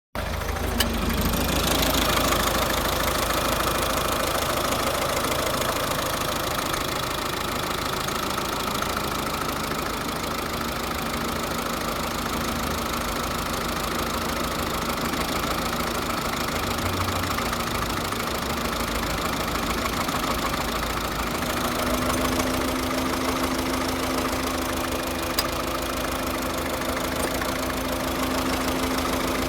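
2009 Volvo S40 1.6D four-cylinder turbodiesel idling with a misfire and an odd engine noise whose cause was never found. A steady hum joins about two-thirds of the way through.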